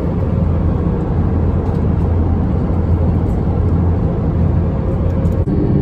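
Steady, loud cabin drone of an Airbus A321-232 in flight, engine and airflow noise heard from a passenger seat, with a faint steady whine over a deep hum. Near the end it cuts abruptly to a different cabin hum made of several held tones.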